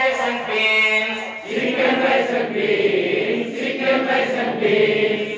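A group of adults singing an action rhyme together in unison. The singing grows fuller about a second and a half in, as more voices join.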